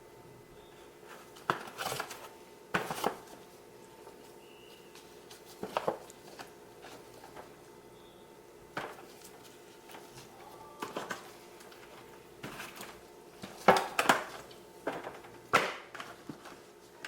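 Turkey legs and necks being turned over in a pan: irregular knocks and short clatters, loudest near the end, over a steady faint hum.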